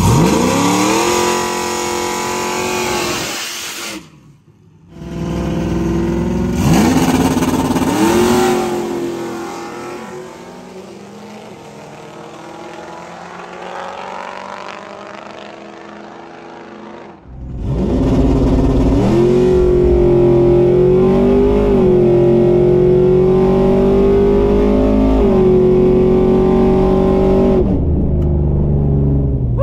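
Chevrolet Trailblazer SS drag truck's engine revving hard in a burnout. After a short cut, a second rev and a quieter stretch, it runs loud at high rpm for about ten seconds, its pitch nearly level with a small dip and recovery partway through.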